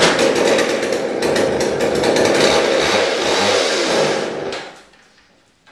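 McCulloch two-stroke chainsaw engine firing on a few squirts of primer and running rough for about four and a half seconds, its speed wavering, before it dies out. It starts but doesn't stay running.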